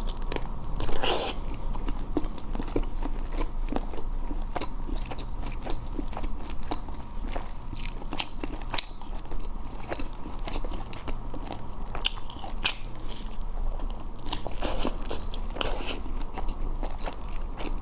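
A person biting and chewing blood sausage, a steady run of short wet clicks and smacks with several louder bites.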